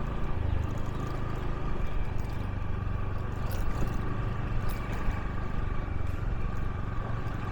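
Motorbike engine running steadily while riding along, a continuous low hum with no clear change in speed.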